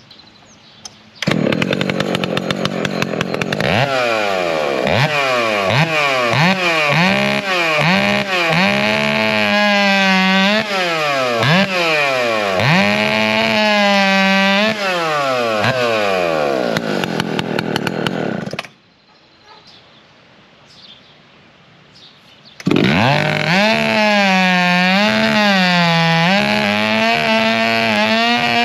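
Husqvarna 2100 big-bore gas race chainsaw on a 9-pin sprocket, running at full throttle through a test cut. The engine pitch dips under load and climbs back again and again. It cuts off about 18 seconds in and starts up again about four seconds later, running back into cutting.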